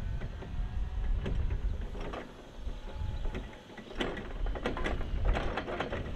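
Toyota 8FBMT30 electric forklift rolling over block paving toward the listener, with a mechanical rattling and clacking that grows busier and louder over the last two seconds as it comes close. A low rumble sits underneath.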